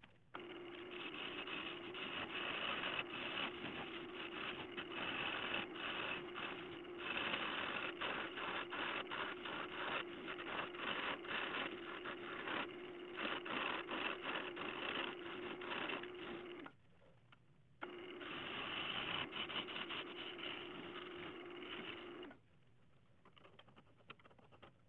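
Wood lathe running with a turning gouge cutting a spinning blank of dead ash: a steady hum under a rough, crackling cutting noise. It drops out for about a second two-thirds of the way through and stops a few seconds before the end.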